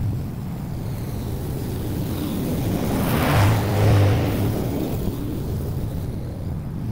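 Honda walk-behind lawn mower engine running steadily while cutting thick St. Augustine grass, growing louder as the mower comes right up to the camera about three seconds in, then fading as it moves away.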